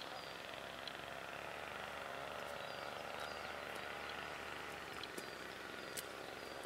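Outdoor ambience: a steady background hiss with short, high chirps from a small bird repeating every second or so, and a few faint clicks.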